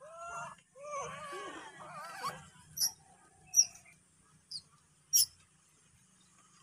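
Young macaque giving a run of high, wavering cries that stop about a third of the way in. Four short, sharp clicks follow over the next few seconds, the second one the loudest.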